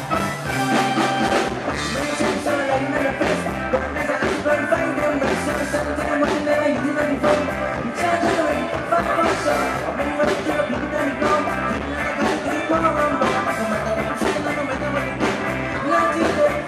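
Live reggae band with a male lead singer singing into a handheld microphone over a steady beat.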